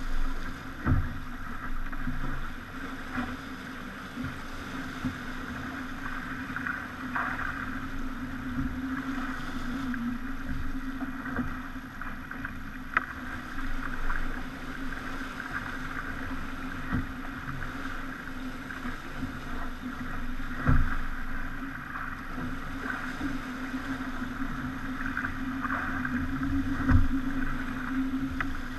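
Pogo 30 sailing yacht under way at sea: water rushing along the hull with a steady hum, broken by a few short low thumps.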